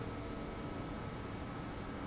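Steady background noise: an even hiss and low rumble with a faint steady high tone, and no siren wail.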